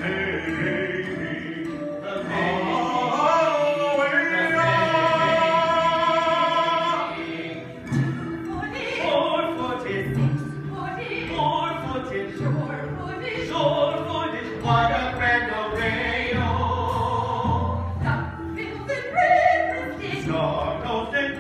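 Live musical-theatre singing with instrumental backing; a voice holds one long note a few seconds in.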